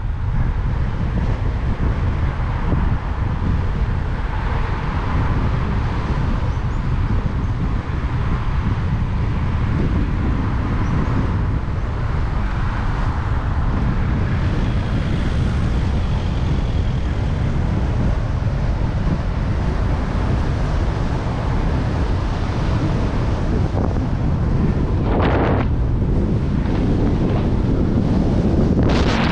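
Strong wind buffeting the microphone of a camera on a moving bicycle, a constant heavy rumble. Two brief rushes of noise come near the end.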